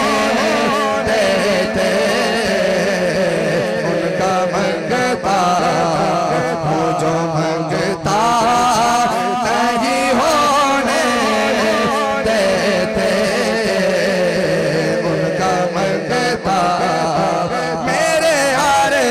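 A man's voice singing a naat, an Urdu devotional poem in praise of the Prophet, through a public-address microphone: long drawn-out, melismatic phrases with the pitch wavering up and down.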